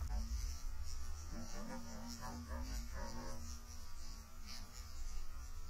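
Underwater sound picked up by a camera in its housing: a steady low rumble with a faint, slightly wavering hum and light crackling.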